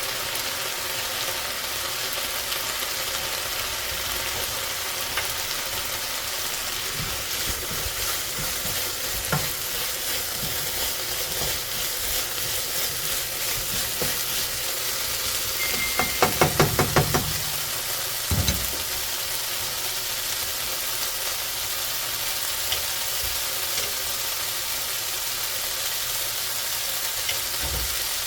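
Vegetable and sausage fried rice sizzling in a hot pan while being stirred. About halfway through comes a quick run of about eight sharp taps, then a single knock.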